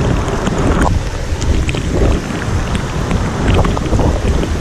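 Storm wind buffeting the microphone in a winter thunderstorm, a heavy steady rumble, with scattered sharp ticks of raindrops striking close by.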